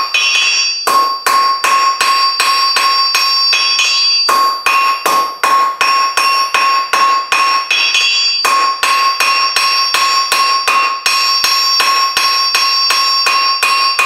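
Blacksmith's hand hammer striking hot mild steel flat bar on a JHM anvil, about three blows a second, each blow ringing out from the anvil. The hammering stops briefly three times as the bar is turned: the end is being tapered for a scroll.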